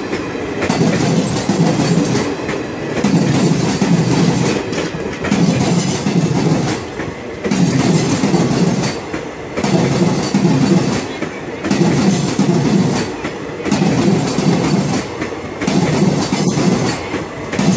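Passenger coaches of an accelerating express rolling past, steel wheels clattering over the rail joints with a loud clatter about every two seconds as each coach's bogies go by, over a constant rumble.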